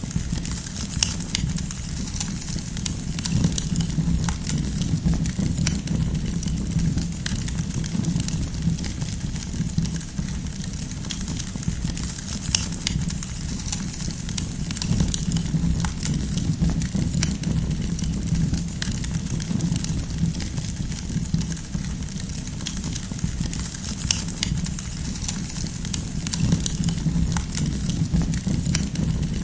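Wood campfire crackling, with frequent sharp pops and snaps scattered over a steady low rumble of the flames.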